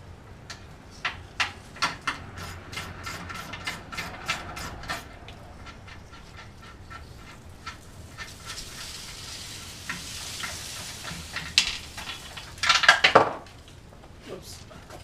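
Socket ratchet clicking in quick irregular runs as the spare tire's lug nuts are undone, for about the first five seconds. Later a hiss, then near the end a loud clattering scrape that falls in pitch.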